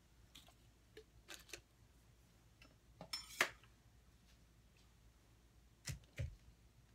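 Plastic cups handled on a work table: scattered faint clicks and light knocks, with the loudest, a short plastic clatter, about three seconds in as a red plastic cup is set down upside down. Two dull thumps come near the end as the small paint cups are handled.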